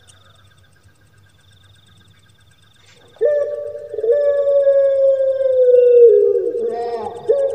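Puter pelung (long-voiced Barbary dove, Streptopelia risoria) cooing. After about three faint seconds a loud, low coo starts abruptly, breaks briefly and goes on as a long drawn-out note slowly falling in pitch. It drops lower near the end before the next coo starts.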